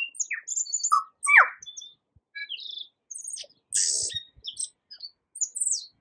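Tui singing: a quick, varied run of short notes and clicks, some sliding steeply down in pitch, with a harsh, wheezy note about four seconds in.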